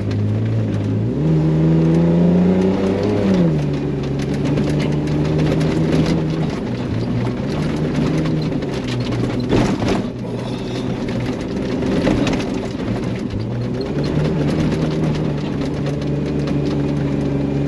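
Toyota 80 Series LandCruiser engine under hard driving off-road, its revs climbing and then dropping back several times as gears change. A few sharp knocks and rattles come through about halfway.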